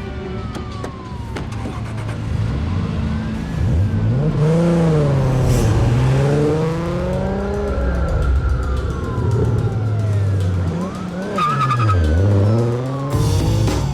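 Police sirens wailing over a car engine that revs hard, its pitch dipping and climbing steeply twice as it accelerates away.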